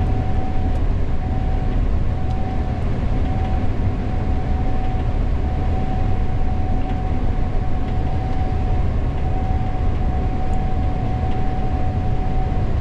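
Gleaner S98 combine running steadily while harvesting corn, heard inside the cab: a constant low rumble with a steady whine on top.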